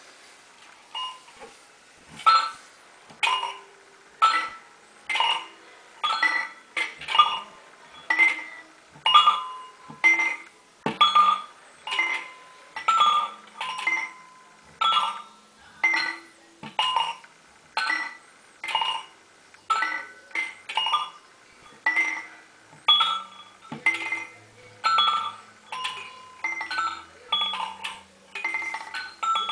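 Nevalyashka roly-poly tumbler doll rocking back and forth, its internal chime ringing a cluster of bell tones with each tilt, about once a second, starting about two seconds in.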